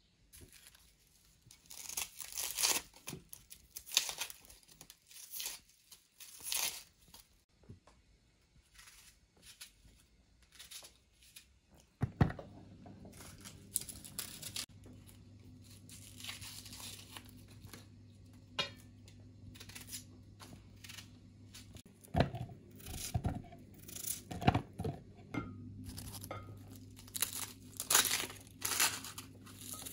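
Repeated short tearing and crinkling sounds of vegetables being peeled by hand: thin skins pulled off button mushrooms and dry onion skin stripped with a knife. A low steady hum comes in about twelve seconds in, with a few sharp knocks.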